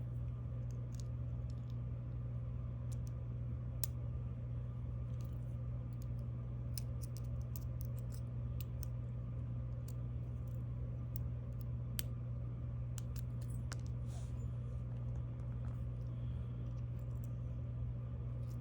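Scattered small, sharp clicks and taps of GOAL S pin-tumbler lock parts being handled during disassembly, over a steady low hum.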